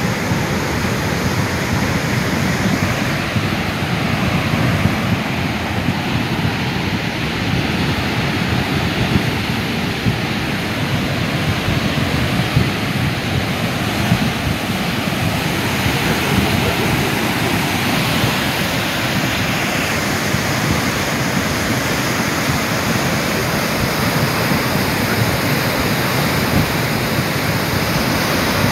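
Flash-flood water rushing down a creek bed, a steady, loud rush of muddy water.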